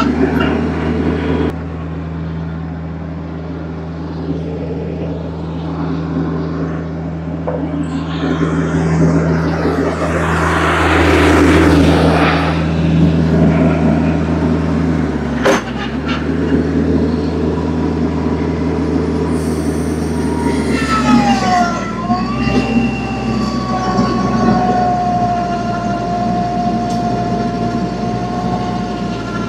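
Tractor engine running steadily at a constant speed. A rough, noisy surge rides over it for a few seconds near the middle, followed by a single sharp knock. In the last third a high whine joins the engine and holds almost level.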